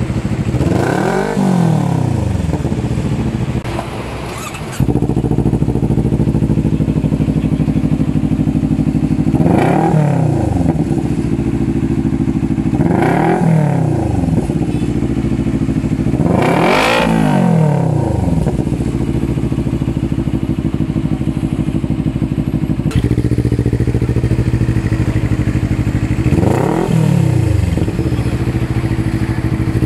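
A two-cylinder motorcycle engine with an aftermarket exhaust idles and is blipped about five times, each rev climbing and dropping straight back to idle. This is a free-rev sound check of the muffler. The idle sound changes abruptly about five seconds in and again near 23 seconds.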